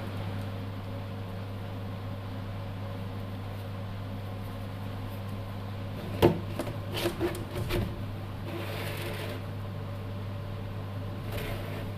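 Small electric fan motor humming steadily, with a quick run of clicks and knocks a little past halfway and a brief hiss just after.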